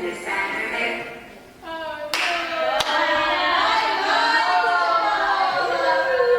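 A few voices singing together, louder from about two seconds in, with two sharp hand claps near the start of the louder part.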